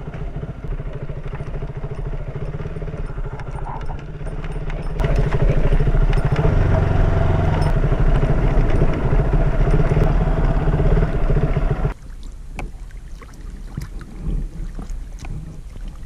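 KTM 200 Duke's single-cylinder engine running steadily while riding. It gets louder about five seconds in and drops off suddenly about twelve seconds in.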